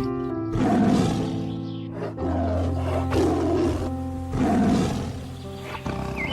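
Background music with an animal's calls laid over it: four loud, rough calls about a second apart.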